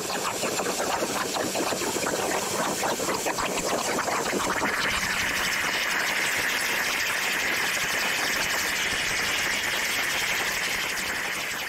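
CNC-driven PrimeWeld Cut60 plasma torch cutting quarter-inch steel plate over a water table: a steady hiss with crackling, joined about five seconds in by a stronger, higher-pitched hiss that holds to the end.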